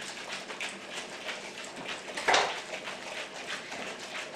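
Metal cocktail shaker being shaken by hand, its contents sloshing and rattling in repeated strokes, with one louder knock a little past halfway.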